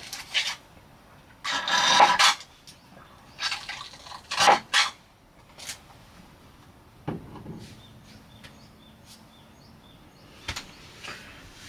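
Camp gear being handled by hand: a series of rustles, clinks and knocks in short clusters, with a dull knock about seven seconds in.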